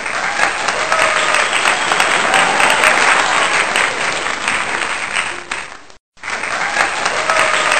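Crowd applauding and cheering, fading out about six seconds in, cutting to silence for a moment, then starting again.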